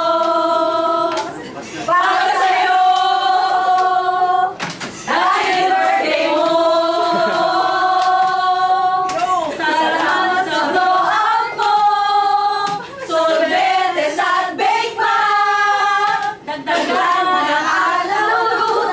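A group of mostly women's voices singing together in long held notes, the phrases broken by short pauses.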